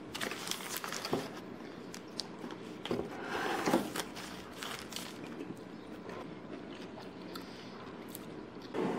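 A sandwich being bitten into and chewed, with its paper wrapper crinkling in the hands. Scattered small crunches and rustles, the loudest about three and a half seconds in.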